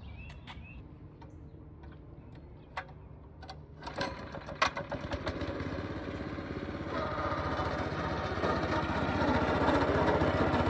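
Small pull-started gas engine of a Brouwer BTR-30 self-propelled lawn roller running, with a few sharp clicks about three to four and a half seconds in. It gets much louder from about four seconds in and louder again about seven seconds in, as the roller is driven over grass.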